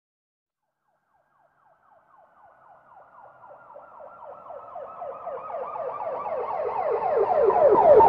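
Police siren in fast yelp mode, about four falling sweeps a second. It fades in from silence about a second and a half in and grows steadily louder as it approaches, with a low vehicle rumble joining near the end.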